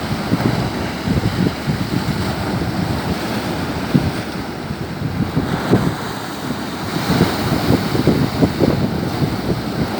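Strong wind buffeting the microphone in irregular gusts, over the wash of heavy waves breaking on a rocky shore.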